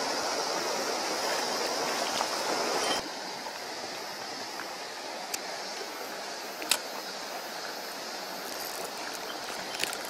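Mountain stream running over rocks: a louder rushing riffle, which drops off suddenly about three seconds in to a quieter steady flow. A few sharp clicks stand out over the water later on.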